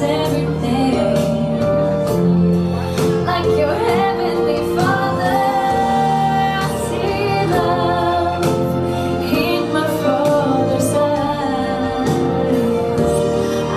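A Christian love song playing, a woman singing long held notes that slide and waver over the accompaniment.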